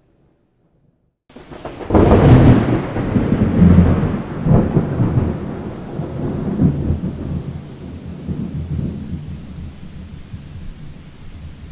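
A thunderclap breaks in sharply after about a second of silence, then rolls on as a deep rumble with a few further peals. It slowly dies away over a steady hiss of rain.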